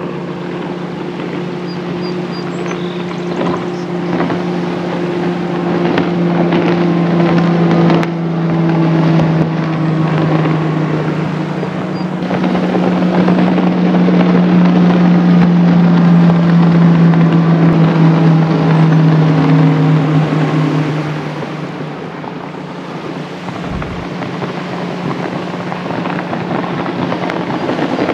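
Bass boat's big outboard motor running at high speed as it passes. It grows louder to a peak mid-way, with its pitch sinking slightly as it goes by, then eases off near the end. Some wind rumbles on the microphone.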